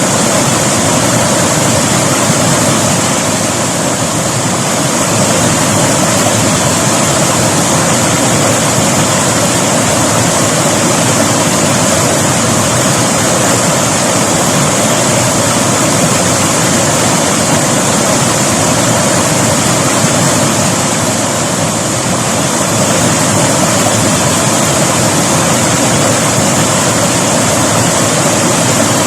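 River water flowing steadily over rocks.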